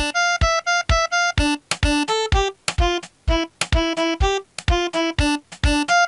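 Background music: a bouncy tune of short, clipped notes, about four a second with brief gaps, each with a low thump beneath it.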